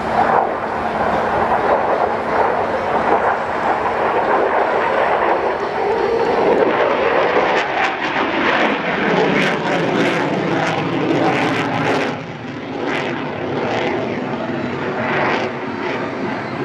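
F-16 fighter jet's single turbofan engine running loud and continuous as the jet flies its display. It takes on a rougher, crackling edge from about eight seconds in.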